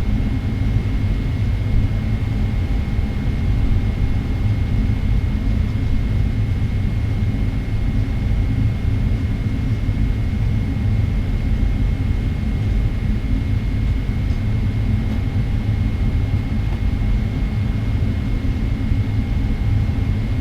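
Steady low rumble of a Boeing 777-300ER's GE90 engines at idle, heard inside the cabin while the airliner is on the ground before takeoff, with a thin steady high whine over it.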